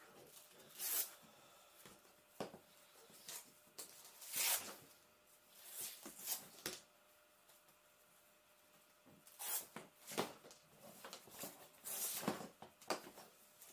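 Velcro hook-and-loop straps on an Acerbis Gorilla motocross knee pad being peeled apart by hand: a series of short tearing rips, several in the first half, a pause of about two seconds, then another cluster.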